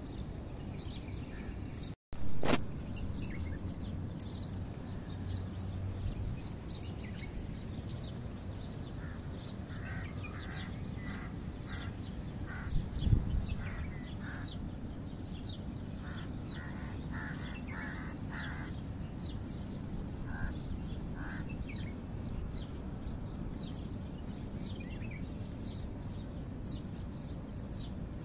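Birds chirping and crows cawing in the background over a steady low rumble, with a sharp knock about two seconds in and a smaller one about thirteen seconds in.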